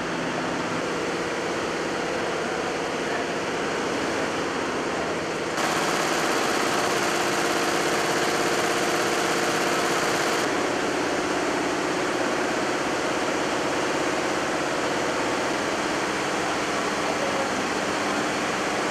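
Factory-floor din of multi-head embroidery machines running: a steady mechanical whirr with a few held hum tones. It steps louder about five and a half seconds in and eases back a little at about ten seconds.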